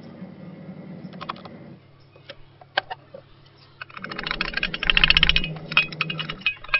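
A stainless-steel mixer-grinder jar being handled: its lid and jar click and knock for the first few seconds. About four seconds in comes a louder stretch of rattling, scraping and knocking as powdered sugar is tipped and tapped out of the steel jar into a glass bowl.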